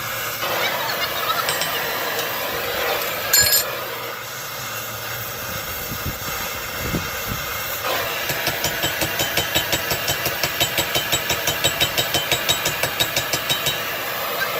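A steady rushing hiss, typical of a forge burner, with a single ringing metal clink a few seconds in. About halfway through, a fast, even rhythm of sharp metal strokes starts, about three a second, and runs on to the end.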